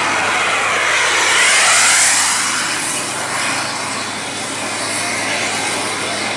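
Tour bus driving past close by and pulling away: engine running with a whooshing hiss and a whine that dips and then rises in pitch, loudest about two seconds in, then easing off.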